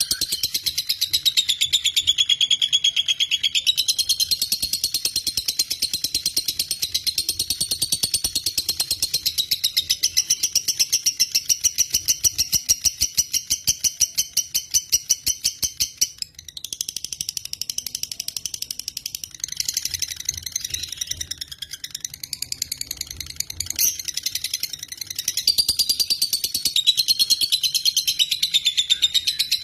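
A lovebird's ngekek: a long, very rapid, high-pitched chattering trill that breaks off briefly about halfway through and then runs on.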